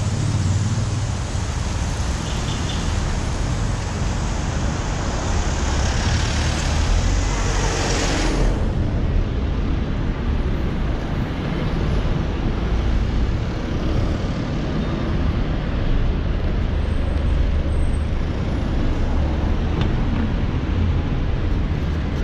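Steady traffic noise of a busy city road, with cars and buses going by and a low rumble throughout. A bright hiss in the first eight seconds or so cuts off sharply.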